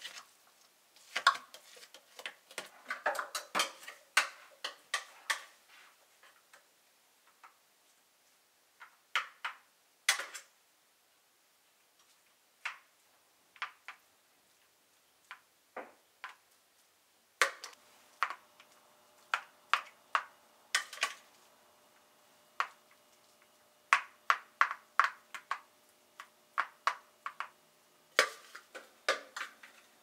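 A spoon scraping and tapping against a plastic food processor bowl and plastic ice cube trays: irregular clicks and knocks in clusters, with short pauses between. A faint steady hum comes in a little past halfway.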